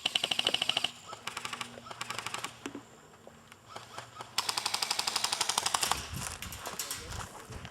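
Airsoft guns firing on full auto in several rapid bursts of sharp clicks, roughly fifteen shots a second, with the longest burst lasting about a second and a half midway through.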